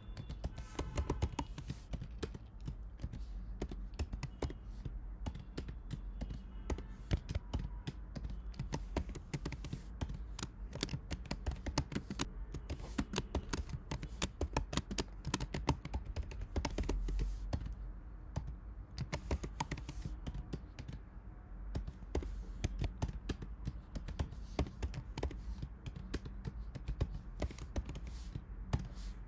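Typing on a computer keyboard: a fast, irregular run of key clicks with a few short pauses.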